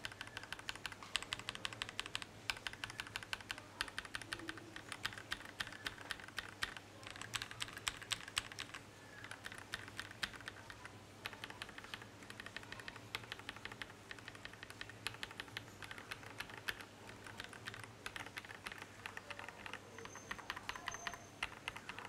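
Rapid typing on a custom mechanical keyboard, fast continuous key clacks with a few short pauses, as a sound comparison of three different keycap sets.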